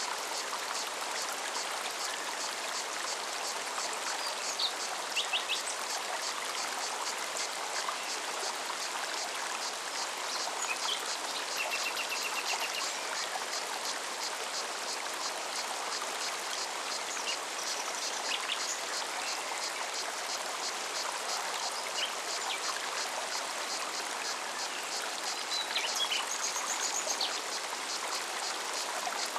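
Forest stream running steadily, with a cicada's even, high pulsing and occasional short songbird chirps.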